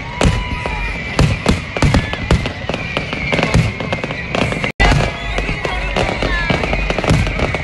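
Fireworks display bursting, with many bangs and crackles in quick, irregular succession over a constant rumble. The sound cuts out briefly about five seconds in.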